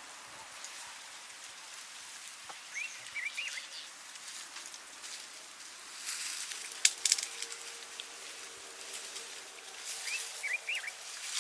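Outdoor natural ambience: a faint steady hiss with short rising bird chirps twice, a few seconds in and again near the end. A burst of rustling and crackling with one sharp click comes about six to seven seconds in.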